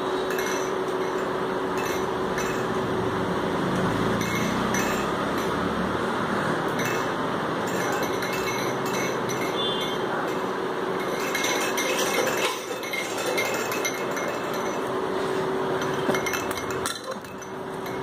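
Light clinking and chiming from a baby's roly-poly tumbler toy as it is pushed and rocks on a stone floor, with scattered small clicks over a steady hiss and a faint hum.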